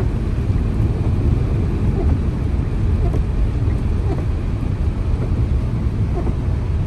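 Wind buffeting the microphone: a loud, uneven low rush with no steady engine tone, starting abruptly.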